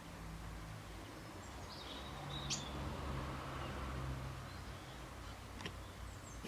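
Quiet background noise with a steady low hum, broken by a few faint, short high chirps about two seconds in and a couple of small clicks.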